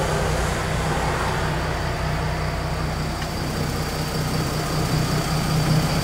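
Car engine idling steadily, warming up and run to charge the battery, with a faint steady high whine above the low hum.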